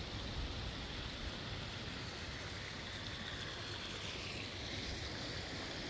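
Steady, faint rushing hiss of a pond fountain splashing, with a low wind rumble underneath.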